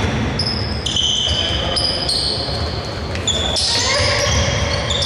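Basketball game sounds on an indoor court: players' sneakers give many short, high squeaks on the floor, while the ball bounces and feet thud.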